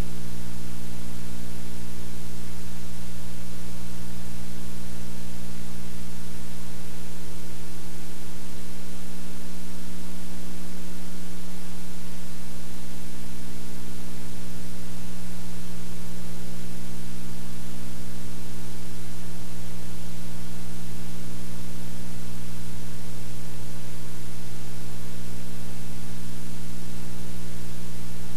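Steady hiss with a low electrical hum made of several steady tones, the noise of a blank stretch of recording with no sound on it.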